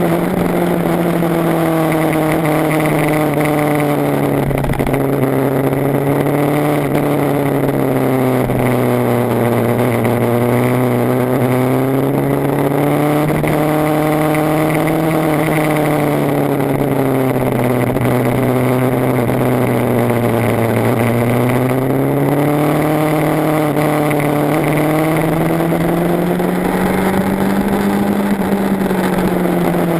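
BMW HP4's inline-four engine running with the bike under way, its pitch rising and falling slowly several times as the rider speeds up and eases off, over a steady rush of wind and road noise.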